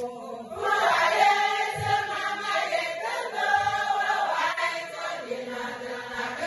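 A group of voices singing together like a choir, getting louder about half a second in.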